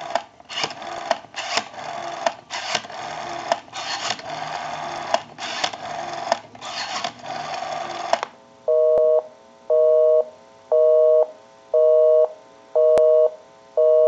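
Western Electric Princess rotary dial telephone being dialed: a run of clicking bursts as each digit is dialed and the dial returns. Then, about eight seconds in, a busy signal starts, a two-tone beep repeating about once a second, showing the called line is busy.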